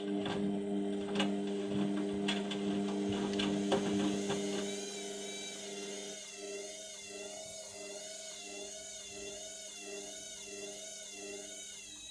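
Indesit washing machine running with a steady motor hum and scattered clicks and knocks from the drum, then a high motor whine that wavers up and down in pitch a little more than once a second, as the machine works an unbalanced load in its final spin.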